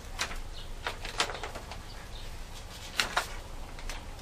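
Protective plastic film being peeled off a new laptop LCD screen, giving a scatter of short crackles and clicks.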